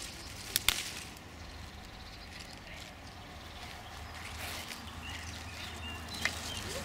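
Leaves rustling as leafy wild herbs are handled and picked by hand, with a few sharp clicks, two close together about half a second in and one near the end. Faint short bird chirps come in during the second half.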